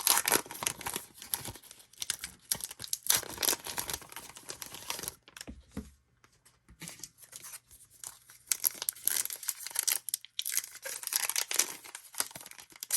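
A baseball card pack wrapper being torn open and crinkled in irregular bursts, with a short lull about five to six seconds in. The wrapper is being ripped apart roughly rather than peeled open cleanly.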